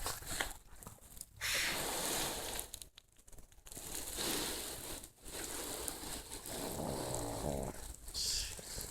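Pug snoring: a series of rough, raspy breaths with short pauses between them, and a low buzzing snore near the end. This is the noisy breathing typical of a pug's short, flat-faced airway.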